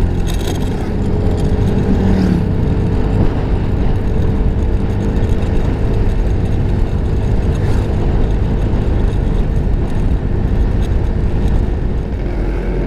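Motor scooter running at a steady road speed, heard from the rider's seat with wind rushing over the microphone; the level holds even throughout.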